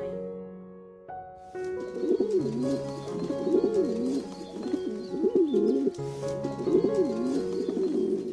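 A pigeon cooing: low rolling calls that rise and fall, repeated over and over from about two seconds in, over background music with long held notes.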